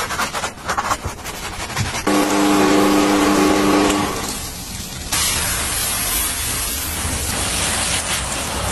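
Brush bristles scrubbing with light rustling ticks, then a steady pitched hum for about two seconds. About five seconds in, a steady hiss starts from a hand-pump foam sprayer spraying snow foam.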